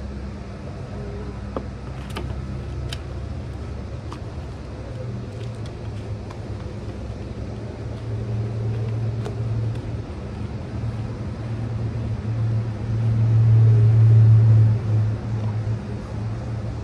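A motor or engine running steadily with a low hum, swelling in level about halfway through and loudest near the end, with a few sharp clicks.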